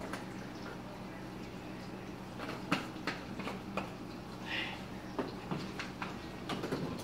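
Light clicks and knocks of kitchen items being handled at a counter over a steady low hum, ending in a loud clatter as something is picked up or set down.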